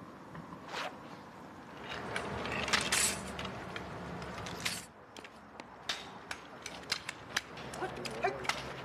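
Kung fu sword practice on pavement: a few brief swishes of the swung blade and scuffing steps, with scattered sharp clicks.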